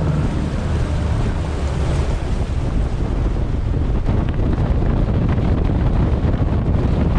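Wind buffeting the microphone on a Skeeter bass boat running across a choppy lake, over the steady rush of the hull through the water and the outboard motor underneath.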